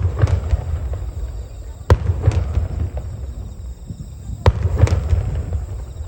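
Aerial fireworks bursting: sharp bangs in two close pairs, about two seconds in and again near four and a half seconds, over a steady low rumble and crackle from the display.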